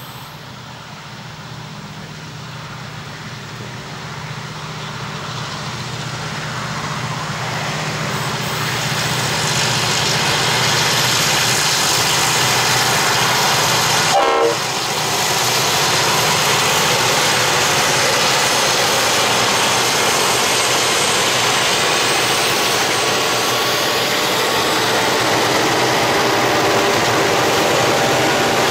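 Loaded grain train's lead diesel locomotives (G, 48, 49 and C class) working up a grade, growing louder over the first ten seconds as they approach and passing about halfway through. Then the loaded grain hopper wagons roll past with a steady rumble and wheel noise on the rails.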